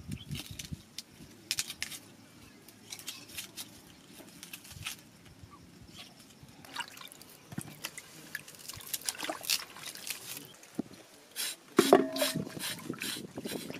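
Knives peeling and trimming red onions by hand, making short scraping clicks. Near the end comes a louder splash and drip as a hand dips into an aluminium pot of water, with the pot briefly ringing.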